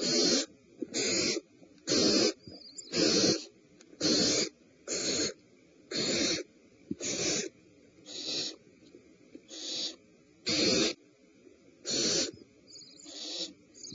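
Barn owl nestlings giving their hissing, snoring food-begging calls: harsh rasps about half a second long, repeated roughly once a second.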